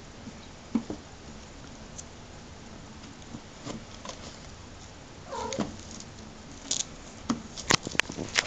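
One-month-old American Curl kittens moving about, with soft knocks and one short mew sliding down in pitch about five and a half seconds in. Near the end comes a quick run of sharp clicks and taps.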